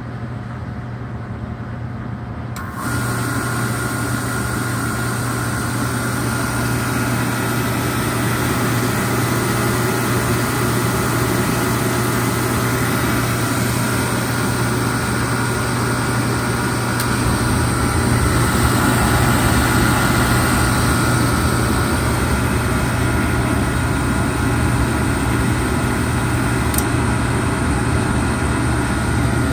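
Oil furnace burner running: a steady hum, joined about three seconds in by a louder steady whine and rush as the burner motor and flame come on.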